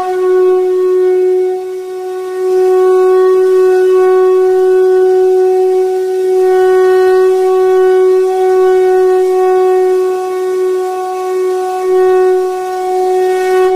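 A single long held note, steady in pitch and rich in overtones like a wind instrument or drone, swelling gently in loudness with a brief dip about a second in.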